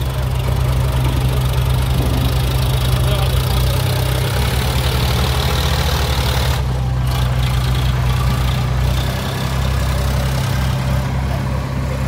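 Sonalika tractor's diesel engine running steadily while hauling a trailer heaped with soil.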